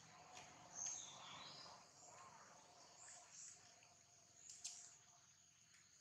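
Faint natural ambience: a steady high-pitched insect drone, with a brief falling chirp about a second in and a soft click later on.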